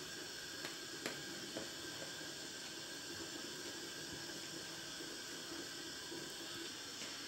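Faint steady hiss of room tone, with a few faint, short clicks in the first two seconds.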